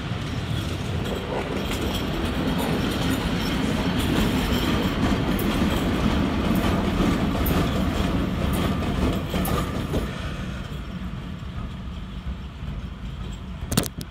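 Two electric freight locomotives, an ET22 and a twin-section ET42, running coupled with no train and passing close by. Heavy wheel-and-rail rumble with clicks over the rail joints grows loudest about halfway through, then fades as they move off. A single sharp click sounds near the end.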